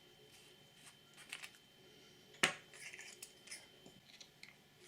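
Small clicks and rustles of a flashlight and its plastic packaging being handled, with one sharper click about two and a half seconds in and another near the end.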